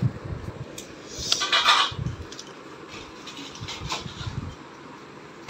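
Soft knocks and rustling of small objects being handled on a floor, with a brief louder rustle about a second in.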